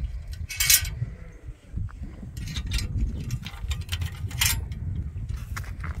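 Steel latch on a rusty tube-steel farm gate worked by hand, clanking and clinking metal on metal as the gate is unlatched and moved. The loudest clank comes under a second in, with further clinks about two and a half and four and a half seconds in, over a steady low rumble.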